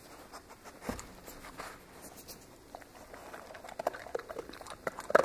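A dog shuffling on a carpet and nosing and mouthing at a hand held to the floor: scattered small clicks and rustles, with a knock about a second in and a sharper click near the end.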